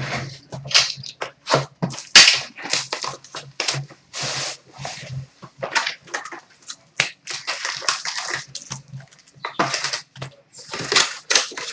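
Packaging of a sealed box of trading cards crinkling and tearing as it is opened: a quick run of rustles and crackles.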